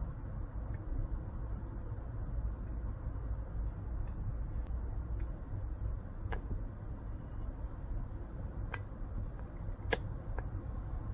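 Steady low rumbling outdoor background noise, with a few faint clicks about six, nine and ten seconds in.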